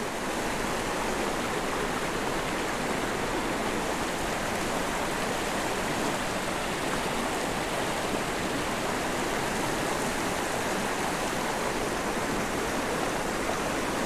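Small mountain creek flowing over stones in shallow riffles: a steady sound of running water.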